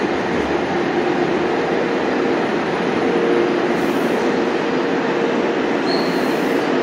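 Tsurumai Line subway train running at the station, a steady loud rumble with a low motor hum. A brief high squeal comes about six seconds in.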